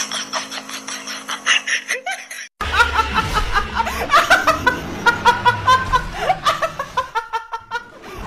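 A young woman laughing in quick, repeated bursts, starting after a sudden cut about two and a half seconds in. Before the cut, a rapid, even pulsing over a steady hum.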